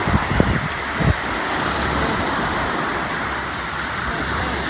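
Surf breaking and washing up a sandy beach, a steady rush of water. Wind buffets the microphone in a few low thumps during the first second or so.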